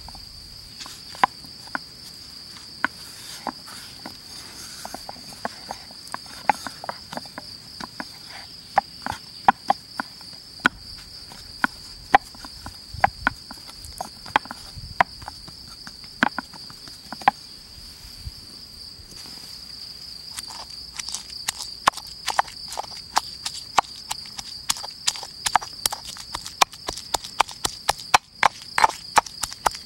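Crickets chirring steadily throughout, under scattered sharp clicks and knocks as dough is worked by hand in a glass bowl. About two-thirds of the way in, the clicking grows quicker and denser as a stone pestle crushes whole mustard seeds in a stone mortar.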